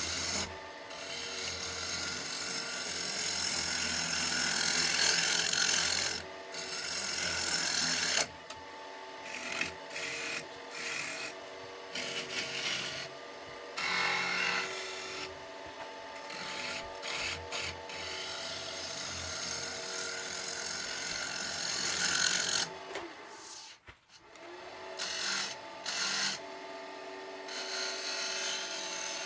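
Wood lathe running with a steady hum while a hand-held turning tool cuts into the spinning wooden mortar, giving stop-start scraping hiss as each cut is taken.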